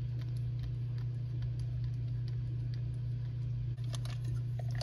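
Steady low hum with a few faint clicks of the plastic chassis and wheel truck of an O gauge model diesel locomotive being handled.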